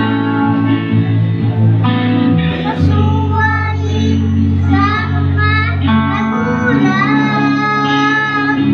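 A young boy singing a Tagalog song through a microphone and PA, with guitar accompaniment underneath.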